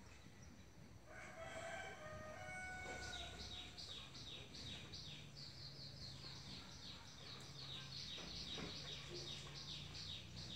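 A rooster crows once in the background. Then comes a long run of high, rapid chirps, each sweeping downward, about four a second, which stops near the end.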